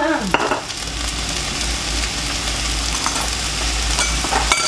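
A kitchen extractor hood fan runs with a steady low hum while fried rice sizzles in the wok, with a few brief clinks near the end.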